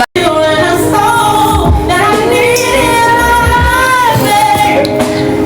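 Music with a woman singing long held notes over a steady low beat.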